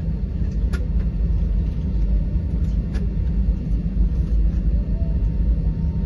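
Steady low rumble inside the cabin of an Airbus A320 on the ground after landing, with a couple of faint clicks.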